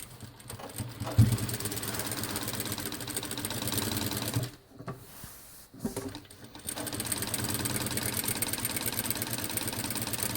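Jack JK-9100BH single-needle lockstitch industrial sewing machine stitching thin chiffon at speed, a fast, even stitching rhythm. It runs in two spells with a pause of about two seconds in the middle, and there is a single knock about a second in.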